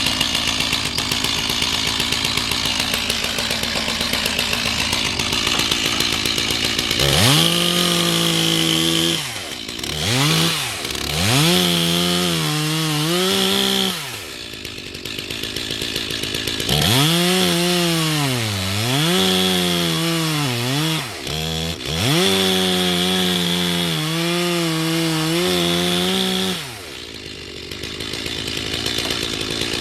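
Two-stroke chainsaw running, then from about seven seconds in revved to full throttle in several long stretches with brief drops between, cutting through the roots of an old fir stump.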